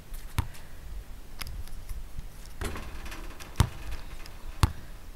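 Basketball bounced on an outdoor asphalt court: a few sharp dribbles, roughly a second apart with a longer gap in the middle.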